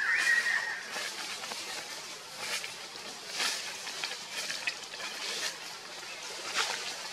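A baby macaque's high, wavering cry that stops about a second in, followed by scattered soft rustles and clicks.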